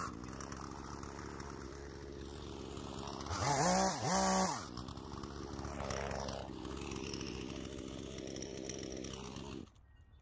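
Two-stroke chainsaw idling, blipped twice in quick succession about three and a half seconds in. The sound cuts off suddenly near the end.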